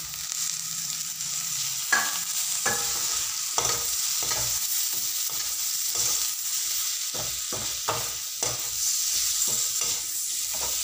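A perforated metal ladle stirs and scrapes potatoes and paneer around a metal kadhai, making irregular clinks and scrapes over a steady frying sizzle.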